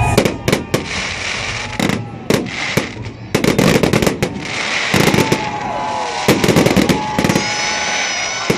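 Fireworks salute bursting overhead: a rapid series of sharp bangs and crackling reports, with dense clusters about three seconds in and again around the fifth to seventh second.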